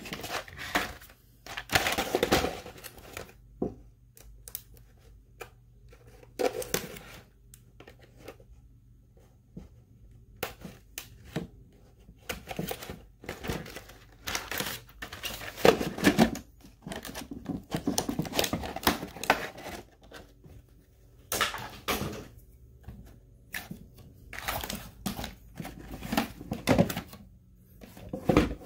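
Hard plastic storage tray being handled, trimmed with a hobby knife and set into a toy footlocker: irregular plastic clicks, knocks and short scrapes, some louder knocks among them.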